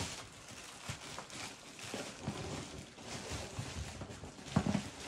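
Plastic packaging and cardboard rustling and crinkling as hands dig through a box, with scattered soft knocks and a louder knock near the end.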